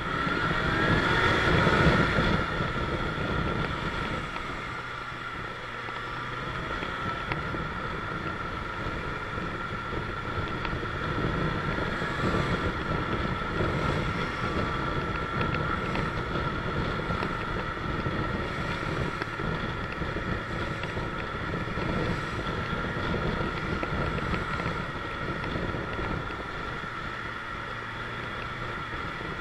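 Motorcycle engine running with wind noise on the microphone while riding. About a second in the engine note rises and gets louder as the bike accelerates, then it settles to a steady run.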